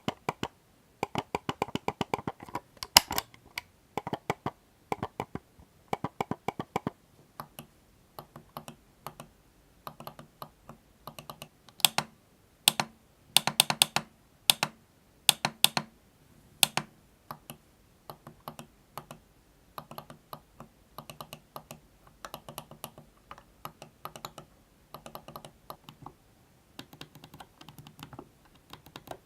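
Computer mouse buttons clicked over and over in rapid runs of sharp clicks, some runs much louder than others.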